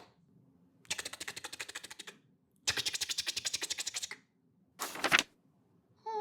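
Cartoon sound effects: two runs of rapid clicking, each lasting about a second, at roughly twelve clicks a second. Near the end come two quick sharp sounds.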